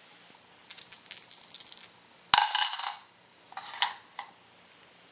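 Game dice clattering: a run of quick clicks as they knock together, then a sharp clack with a brief ringing tail about two seconds in as they are rolled into a white bowl, followed by a few smaller clicks as they settle.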